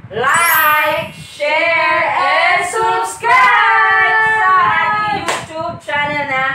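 Several voices singing together loudly, with long held notes, and a single sharp smack about five seconds in.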